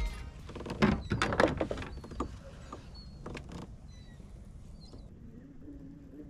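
Irregular clicks and knocks of fishing tackle being handled in a plastic fishing kayak, bunched in the first three and a half seconds, with faint short bird chirps. A low steady hum comes in about five seconds in.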